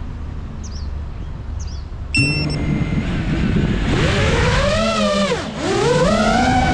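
FPV quadcopter's electric motors starting suddenly about two seconds in and spooling up as it takes off: a whine whose pitch rises and falls with the throttle, dipping sharply once near the end. Before the motors start, a few birds chirp faintly over a low hum.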